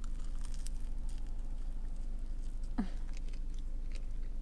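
Biting into and chewing a toasted sourdough grilled cheese sandwich, with small soft crunches of the crust. A short falling 'mm' from the eater comes about three seconds in.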